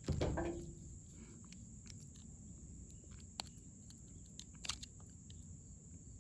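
Small metal door-lock parts being handled as a retaining clip is slid onto the lock cylinder: a sharp metallic clack with a brief falling ring at the start, then a few light clicks.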